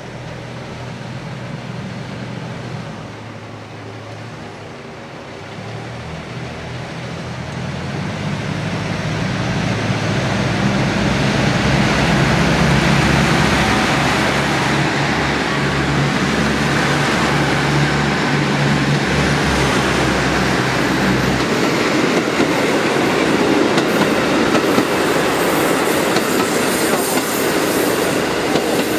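KiHa 85 limited-express diesel multiple unit pulling away and passing close by. The note of its Cummins diesel engines grows louder for several seconds as it gets under way, then the engine note drops out about two-thirds of the way through, leaving the clickety-clack and rumble of the wheels on the rails.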